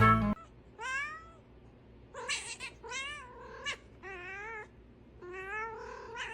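A domestic cat meowing again and again: a series of about five separate meows, each rising and falling in pitch.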